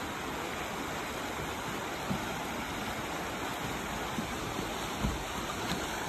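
Steady rush of Spearfish Creek's water flowing over rocks, with a couple of soft low thumps about two and five seconds in.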